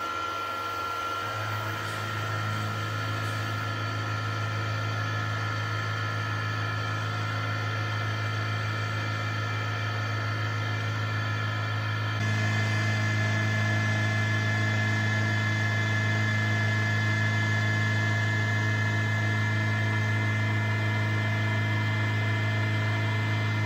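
Milling machine spindle running with an end mill cutting a metal air-bearing block: a steady machine hum with several whining tones that suddenly steps up louder about halfway through and stays there.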